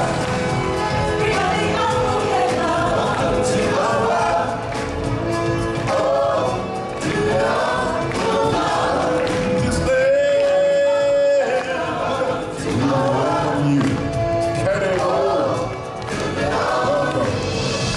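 Group of singers performing live as a choir over instrumental backing, with one long held note about ten seconds in.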